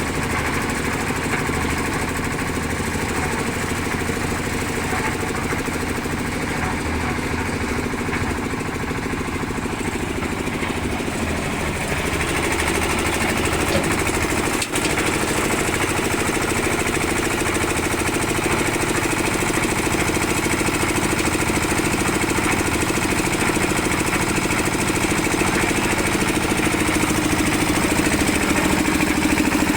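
Concrete mixer machine's engine running steadily with a dense, rattling chug. About twelve seconds in, its sound grows louder and brighter and stays so.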